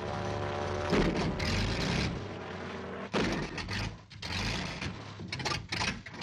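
Single-engine light airplane's piston engine and propeller droning steadily. The sound jumps louder suddenly about one second and three seconds in.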